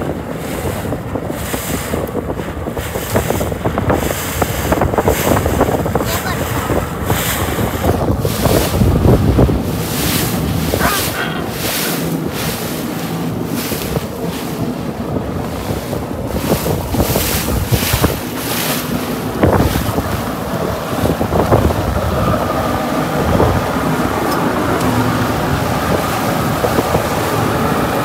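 Wind buffeting the microphone over the rush and splash of water along the hull of a small motorboat running fast through choppy water, with repeated short gusts or splashes.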